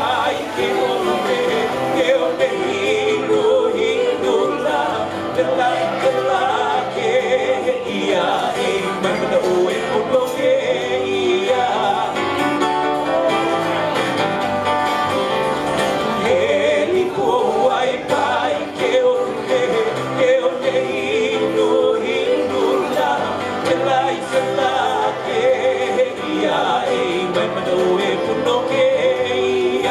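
Live band playing a song: a man singing into a microphone over several strummed acoustic guitars.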